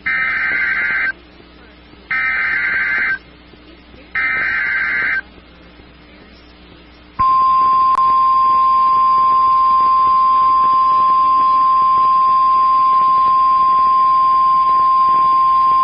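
NOAA Weather Radio Emergency Alert System (EAS) alert. Three SAME header data bursts of warbling digital tones, each about a second long and about a second apart, are followed after a short gap by the steady single-pitch 1050 Hz warning alarm tone, held for about nine seconds. The sequence signals that a warning broadcast is about to follow.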